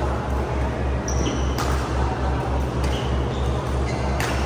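Badminton play between rallies: shoes squeak briefly on the court about a second in, and a sharp racket hit on the shuttlecock comes near the end as the serve is played. A low pulsing hum runs underneath.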